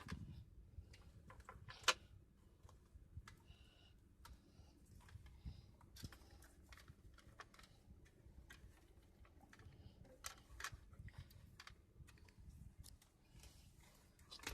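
Faint, scattered clicks and taps of a cable and plastic dashboard trim being handled while an AUX cable is pulled through behind a car radio, with one sharper click about two seconds in.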